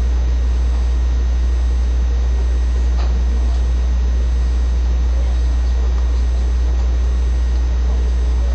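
Steady, loud low hum under a faint hiss, with one faint click about three seconds in; no speech.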